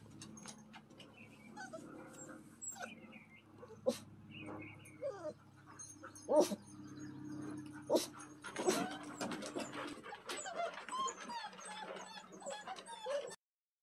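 Standard poodle puppies whimpering and yipping in many short high calls that bend up and down, with sharp clicks and taps scattered throughout. A steady low hum sits underneath until about ten seconds in, and the sound cuts off suddenly near the end.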